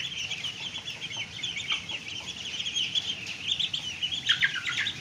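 Ducklings peeping: many short, high chirps overlapping in a continuous stream.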